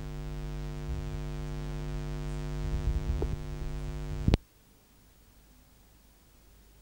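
Steady electrical hum with many even overtones and some low rumble underneath, cutting off with a click a little over four seconds in; near silence after.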